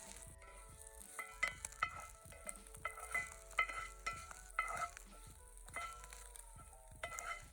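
Shelled oysters sizzling as they fry in coconut oil in a cast iron pan. They are being stirred, with irregular clinks and scrapes against the pan.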